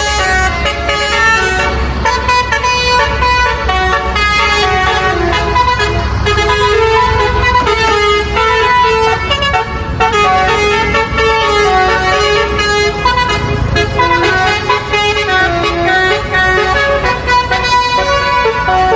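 Basuri multi-tone bus horn (telolet) playing a long melody, one held note stepping to the next without a break, over the low rumble of the bus's engine.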